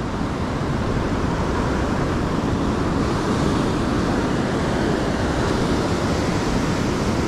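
Ocean surf: a steady rush of breaking waves and washing water, swelling a little in the first second.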